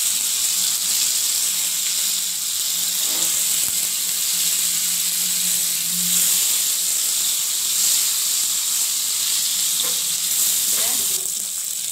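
Whole pointed gourds (parwal) sizzling steadily as they shallow-fry in hot oil in a nonstick kadai, turned now and then with a wooden spatula.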